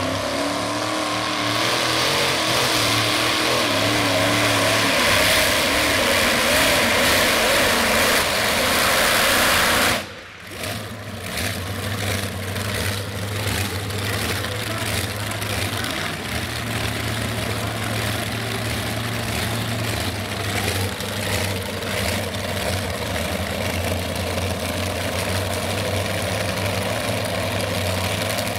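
Multi-engine modified pulling tractor's supercharged engines running at full throttle as it pulls the sled. About ten seconds in the sound cuts suddenly, then the engines run on steadily at lower revs.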